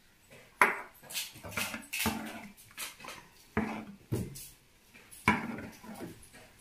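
A steel ladle knocking and scraping against the sides of an aluminium pan while milk is stirred into cooked ragi porridge. About nine sharp clinks come at an irregular pace, each ringing briefly.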